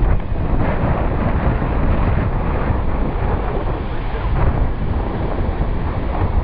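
Wind buffeting the microphone over the low, steady rumble of a moving vehicle.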